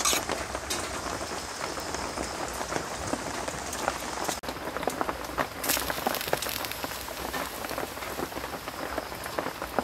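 Heavy rain falling steadily: a dense, even patter of drops.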